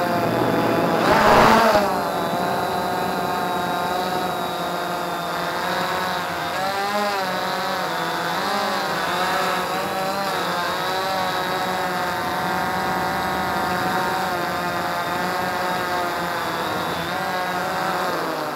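Quanum Nova quadcopter's motors and propellers whining in flight, heard close up from its onboard camera. The pitch wavers up and down as the motors speed up and slow to hold the craft, with a brief louder surge about a second in.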